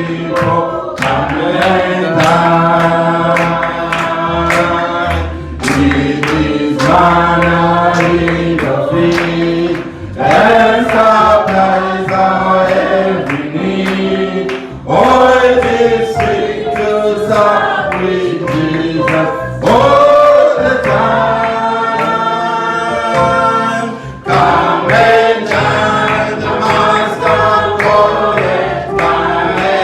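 A choir singing a gospel song, several voices together in phrases of a few seconds each.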